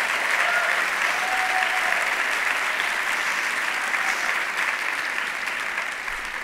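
Theatre audience applauding, dying down near the end.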